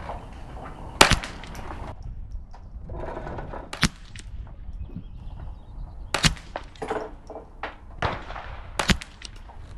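Ruger 10/22 .22 rimfire rifle with a muzzle brake firing single shots: four sharp cracks spaced about two and a half seconds apart.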